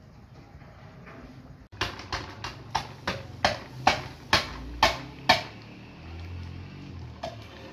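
About a dozen sharp metallic taps, two or three a second, each with a short ring, at a large metal cooking pot as spice is shaken in from a tin. A low steady rumble follows.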